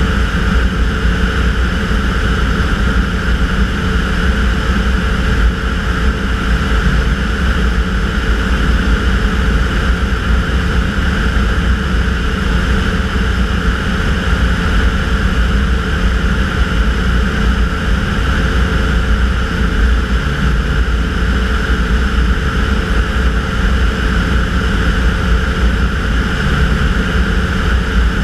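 Tanarg air trike's pusher engine and propeller running steadily in level cruise flight, an unbroken drone that holds the same pitch and loudness.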